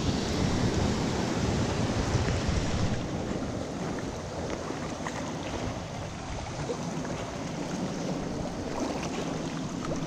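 Small mountain creek rushing steadily, with wind buffeting the microphone; the rush drops a little about three seconds in.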